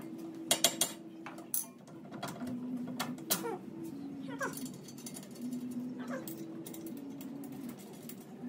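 Sharp metal clinks and knocks from hand work on a car's front wheel hub, loudest about half a second in. Under them runs a steady low tone that steps between two pitches, with several short falling squeaks.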